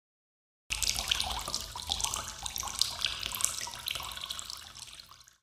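Logo-reveal sound effect: a crackling, splashing noise that starts suddenly about a second in and fades away over about four seconds, then cuts off.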